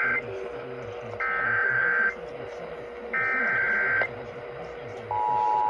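Emergency Alert System SAME header tones: the tail of one data burst and then two more, each just under a second long with about a second's pause between them. About five seconds in, the steady two-tone EAS attention signal begins. A faint steady tone runs underneath.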